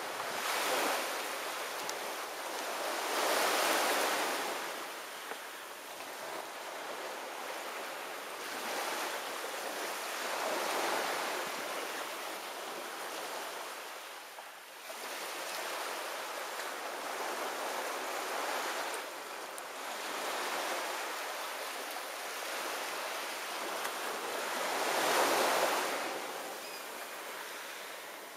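Ocean surf: an even rush of breaking waves that swells and eases every several seconds.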